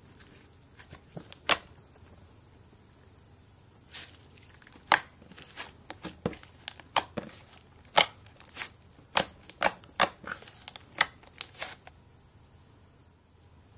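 Thick slime being squeezed and poked by hand, giving irregular sharp pops and clicks as air pockets in it burst. The pops come thickest in the middle and stop shortly before the end.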